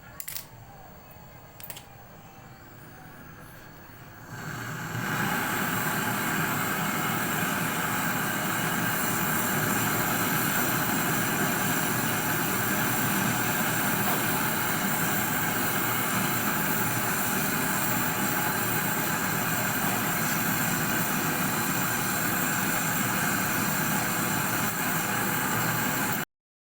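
Brazing torch flame burning with a loud, steady hiss, lit about five seconds in after a few clicks, while a refrigerator's filter drier is brazed into the refrigerant line.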